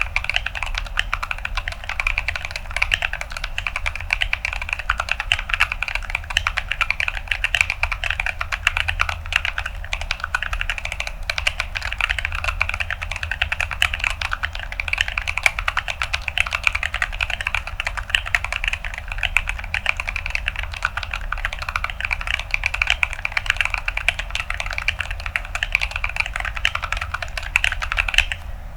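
Fast, continuous typing on a mechanical keyboard with Gazzew Boba U4T tactile switches in an acrylic plate and ASA-profile keycaps: a dense, crunchy clatter of keystrokes that stops right at the end.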